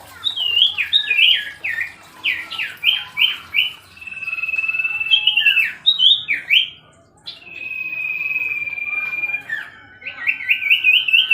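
Common iora (cipoh) singing. Long, level high whistles alternate with quick runs of notes that slur down from high to lower pitch. A final run of rapid rising-and-falling notes comes near the end.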